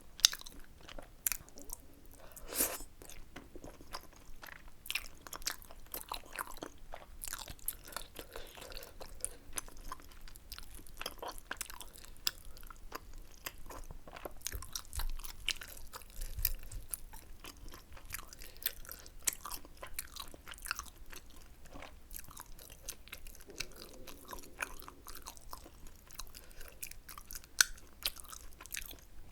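Close-miked chewing and biting of tteokbokki, a steady run of short wet mouth clicks with occasional crunches.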